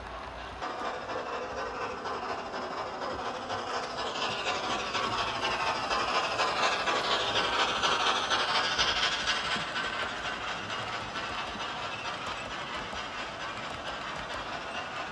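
Sound decoder playing a Thompson A2 Pacific steam locomotive's rapid exhaust beats, from a Locoman Sounds profile on a Doehler & Haass decoder in a Hornby OO gauge model, as it runs with a train. The wheels rattle along the track. It grows louder to a peak about halfway through, then fades as the model passes by.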